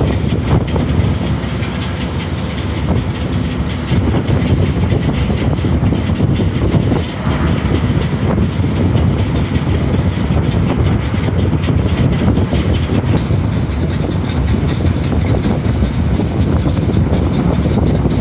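Wind buffeting the microphone: a loud, steady rumble that flutters irregularly, with no clear machine tone.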